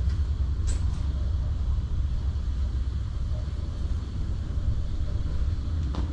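Wind buffeting the microphone, a steady low rumble, with a couple of faint clicks.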